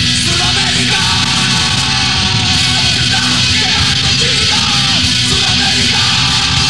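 Hardcore punk song from a lo-fi cassette recording: shouted vocals over distorted electric guitar, bass and drums.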